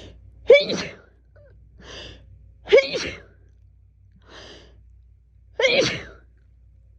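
A woman sneezing three times in a fit, each sneeze sudden and voiced, a little under three seconds apart, with a quick breath drawn in before each of the later two. She puts the fit down to fall allergies.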